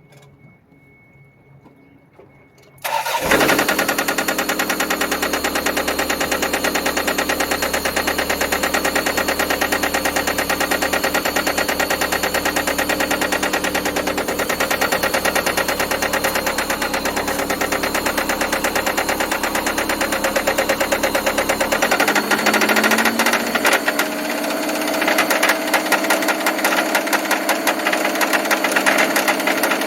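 Toyota 5S-FE four-cylinder engine cranking and starting about three seconds in, then running with a fast, steady clacking knock: a bad rod knock, with thick oil stabilizer freshly added to the oil. About two-thirds of the way through, the pitch rises a little as the idle speed comes up.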